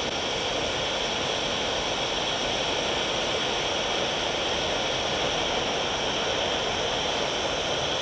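Handheld blowtorch flame burning with a steady hiss as it heats a water-filled tin-can hero's engine.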